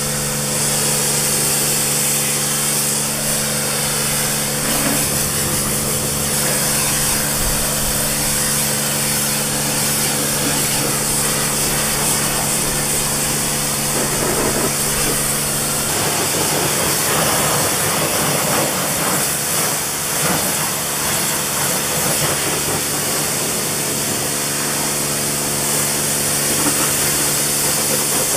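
Kränzle pressure washer spraying water onto a car's paintwork in a steady hiss, with the machine's motor and pump humming steadily underneath.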